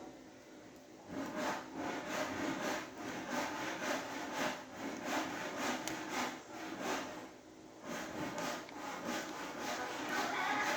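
Repeated rubbing and scraping, about two to three strokes a second, starting about a second in: hands working stiff plastic parts of a model-kit action figure.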